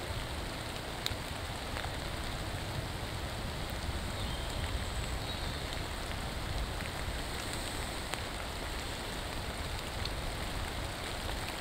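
Steady rain falling, with a few single drops standing out as sharp ticks.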